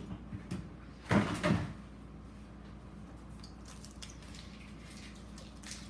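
Unboxing packaging being thrown into a trash bin: a short clatter of two knocks about a second in, over a faint steady hum.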